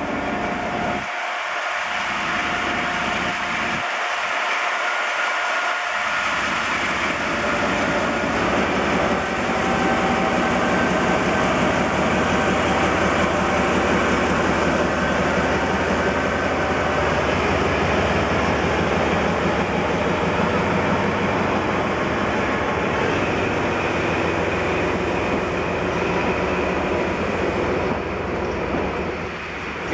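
DE10 diesel-hydraulic locomotive pulling out with a ten-car train in tow: its engine is heard working at first, then the towed cars roll past with a steady wheel-on-rail noise.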